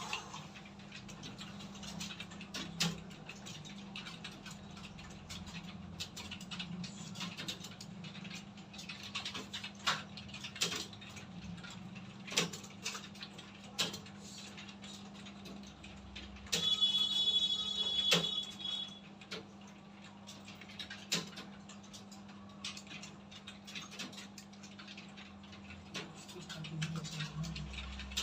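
Many computer keyboards being typed on at once: an irregular patter of key clicks over a steady low hum. About two-thirds of the way through, a high-pitched tone sounds for about two seconds.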